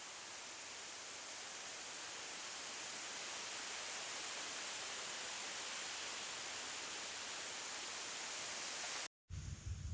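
Steady even hiss, slowly growing louder, broken off by a sudden brief dropout near the end.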